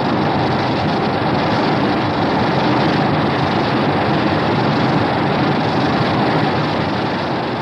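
Homemade kaiju monster sound effect: a long, harsh, noisy rumble that starts abruptly and begins to fade near the end.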